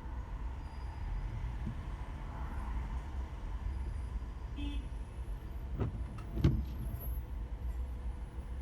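Car in slow traffic on a rainy road, heard from inside the cabin: a steady low engine and road rumble. A brief high chirp comes a little past halfway, and a few sharp knocks follow about six seconds in, the loudest about six and a half seconds in.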